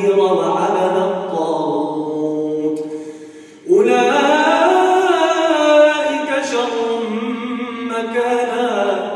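A man's voice reciting the Quran in a melodic chant during Taraweeh prayer, holding long wavering notes. One phrase fades out about three seconds in, and after a short breath a new phrase starts loud.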